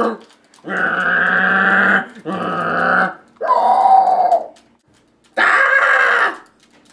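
A young man's voice making four drawn-out wordless noises, each about a second long with short gaps between, as mouth sound effects while playing a handheld video game.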